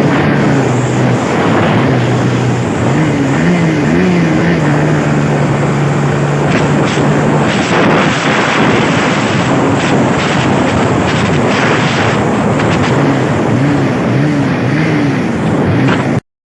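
Honda CBR150R's single-cylinder engine on its stock exhaust, ridden at speed under a loud rushing noise. The engine note holds steady, then wavers up and down in pitch as the throttle changes, and the sound cuts off abruptly near the end.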